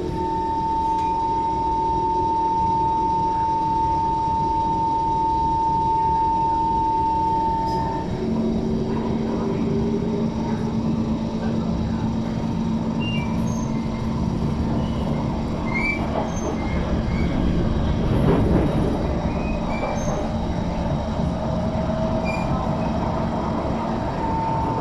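Inside an SMRT metro train car running and slowing on the approach to its terminating station: wheels and running-gear rumble, with a steady high motor whine that stops about a third of the way in and is followed by a lower steady hum.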